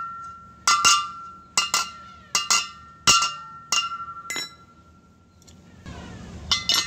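Metal parts of a truck exhaust brake chamber clinking against a steel wheel rim, which rings after each knock: about nine sharp clinks, mostly in pairs, over the first four seconds or so. Near the end comes a short rustle with a couple of clicks as the parts are handled.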